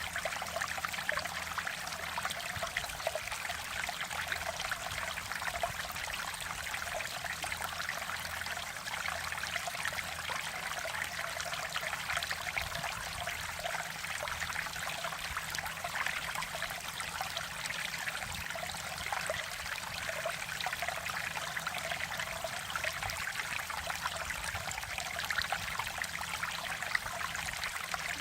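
Mountain valley stream flowing over rocks, a steady trickling and splashing of water with no pauses.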